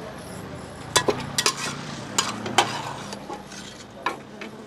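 A metal spatula scraping and clinking against a steel serving tray and an aluminium pot as cooked mutton tripe curry is scooped. Several sharp clinks fall between about one and three seconds in, with one more near the end.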